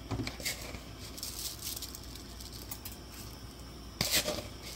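A pot of seasoned water near the boil, bubbling and hissing faintly with scattered crackles. About four seconds in, washed jasmine rice drops into the hot liquid with a short wet splash.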